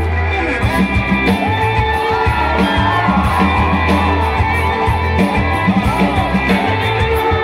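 Rock band playing live: drum kit, electric guitars and bass. A held low bass note gives way to a choppy drum beat about half a second in, with a wavering melody line above.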